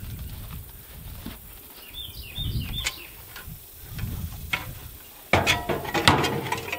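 Metal folding step ladder clattering and clanking as it is lifted, moved and set down, loudest in a burst of knocks over the last second and a half. A bird chirps a few times about two seconds in.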